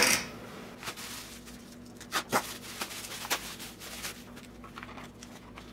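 Plastic bubble wrap rustling and crinkling as it is pulled off a coin, with a sharp click at the start and a few light clicks after.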